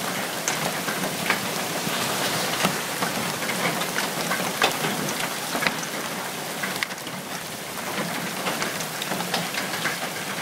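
Hailstones pelting down in a heavy hailstorm: a dense, steady hiss dotted with many sharp ticks and clicks of single stones striking.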